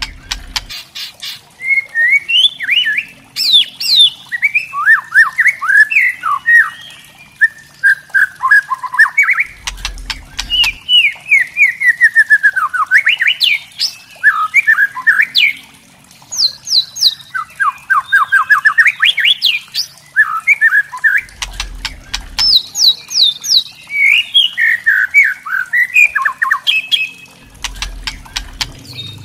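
White-rumped shama singing loud, rapid chattering phrases (kretekan): strings of sharp notes sweeping up and down, several a second, with short pauses between phrases.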